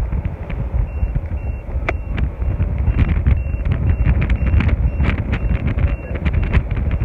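Strong wind buffeting the phone's microphone on an open sailboat deck: a heavy, gusting low rumble with frequent brief crackles.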